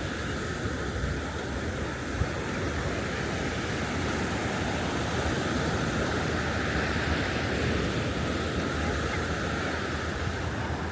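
Ocean surf washing onto a beach: a steady rushing noise that swells slightly in the middle.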